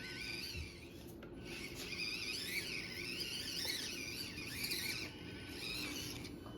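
Axial SCX24 micro RC crawler's small electric motor and gears whining, the high pitch rising and falling quickly as the throttle is worked.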